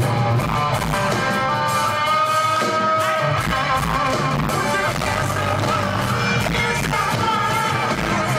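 Rock band playing live in an arena: a singer holding long, wavering notes over guitar and a full band mix.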